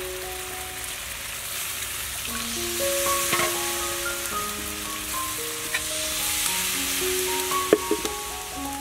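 Corn porridge sizzling steadily in a large metal wok over a wood fire, with a few sharp clicks near the end. Soft background music of slow single notes plays over it.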